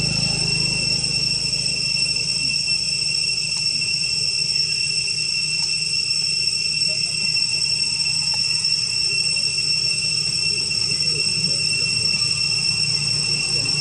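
Insects droning steadily in the surrounding forest: one high, unbroken tone with no pauses, over a faint low hum.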